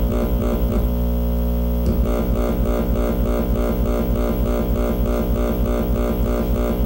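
Live electronic noise music: a dense, many-pitched drone pulsing in a fast, even rhythm. About a second in, the pulsing stops for a moment and the drone holds steady, then the pulse comes back.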